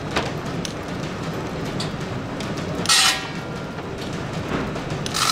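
Belt-driven saw-blade sharpening machine running, its mechanism clattering steadily, with one short loud grinding hiss about three seconds in as the grinding wheel meets a tooth of the circular saw blade.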